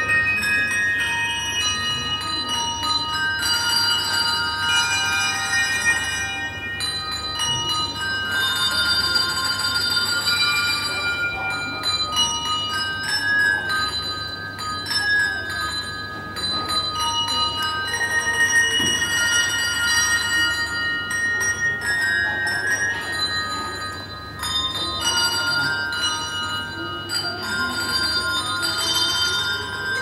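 A handbell ensemble playing a melody, bells struck one after another and overlapping as each note rings on.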